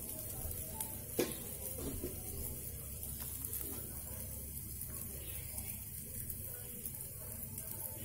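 Dosa batter sizzling steadily in oil on a hot nonstick tawa over a high gas flame, with one small click about a second in.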